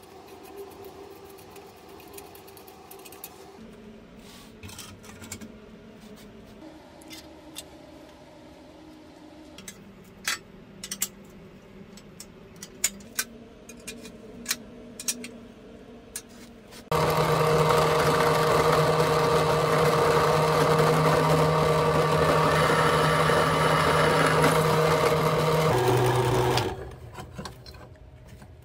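Drill press motor running while drilling into steel: a loud, steady machine hum with several held tones that starts suddenly about two thirds of the way in and stops near the end. Before it come scattered light metallic clicks and taps from a wrench turning the steel cross-slide screw.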